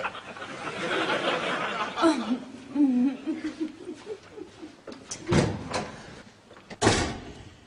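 Studio audience laughter, then a short wavering voice, then two sharp thuds about a second and a half apart.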